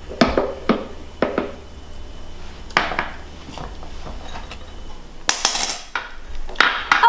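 A blender's plastic lid with its tamper being taken off the jar and set down on a stone countertop, then a utensil being picked up: a run of knocks and clatters in the first few seconds, and a couple of longer, noisier handling sounds near the end.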